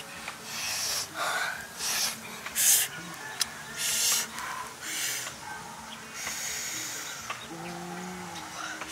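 A person sniffing and breathing loudly in short bursts over grilled fish, about one burst a second, with a short low hum near the end.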